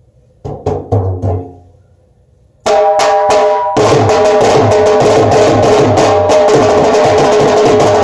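Dhol, the double-headed barrel drum, played with sticks: a few light strokes, a short pause, three hard strokes, then a loud, fast steady rhythm from about four seconds in. The higher head rings out over deep bass strokes.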